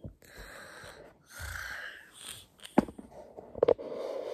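Breathy exhaling close to the microphone, then two sharp knocks about a second apart from the phone being handled, followed by rustling.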